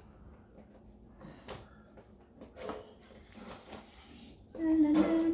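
A few faint clicks and rustles from handling the packaging. About four and a half seconds in, a voice begins humming or singing a held note.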